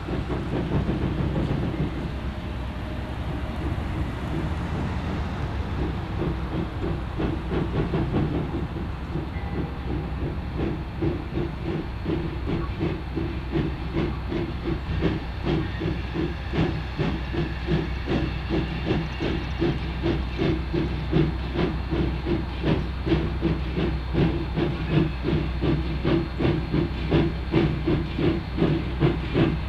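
Small 0-4-0 tank steam locomotive working a train, its exhaust chuffing in an even rhythm over a hiss of steam, growing louder as it approaches.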